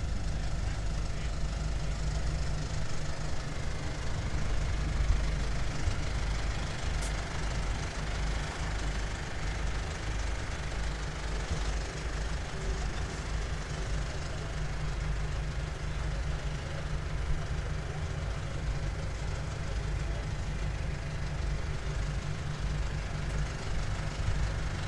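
Low, steady engine rumble of tractors idling.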